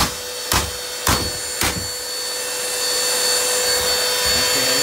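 Bissell stick vacuum's motor running with a steady whine, while four sharp knocks about half a second apart land in the first two seconds; after the knocks stop the motor's rushing sound grows a little louder.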